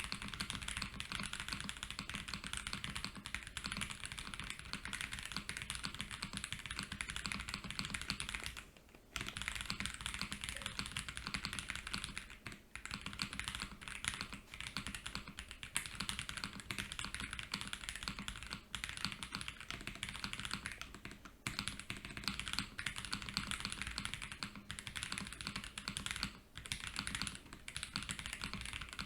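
Fast continuous typing on a mechanical keyboard with stock Akko POM Silver linear switches on a polycarbonate plate with plate and case foam, keys bottoming out in a dense patter, with brief pauses about 9, 12 and 21 seconds in.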